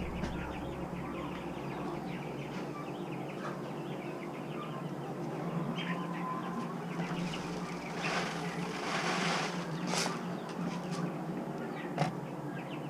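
A flock of broiler chickens and young turkeys calling, a steady chatter of many short calls, with two sharp knocks near the end.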